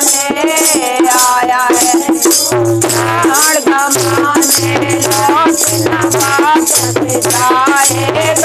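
Women singing a Hindi devotional folk song (bhajan) together, with a shaken rattle keeping an even beat of about three strokes a second.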